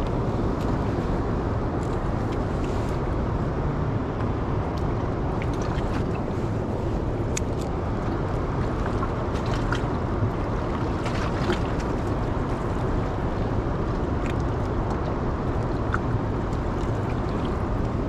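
Steady rush of river water flowing out below a dam spillway, with a few faint clicks.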